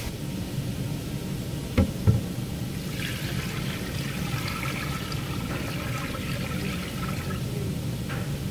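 Liquid pouring for about four seconds, after two sharp knocks, over a steady low hum.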